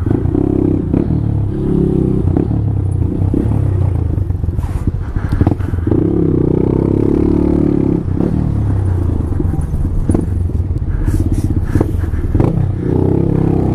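Honda Grom's single-cylinder 125 cc four-stroke engine running at low speed in traffic, the revs rising and falling as the bike moves off and slows.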